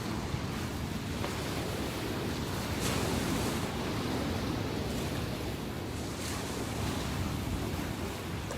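Ocean waves surging and washing on the shore, a steady rushing with a low rumble and a couple of slightly louder swells, with some wind noise on the microphone.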